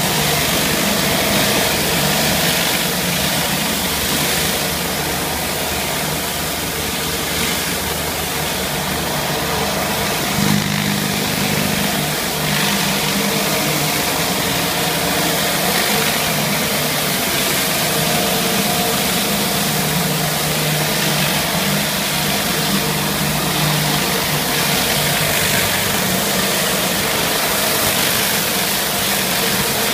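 A hot-water pressure washer running steadily while a Viper rotary surface cleaner sprays scalding water onto a tile floor: an even spray hiss over a steady engine hum.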